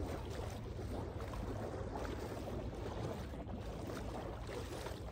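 Wind rumbling on the microphone over small lake waves lapping steadily at a sandy shore.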